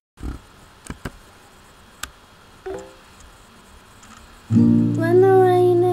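An acoustic guitar chord strummed suddenly about four and a half seconds in and left ringing, with a voice humming a note over it. Before that, only a few light clicks.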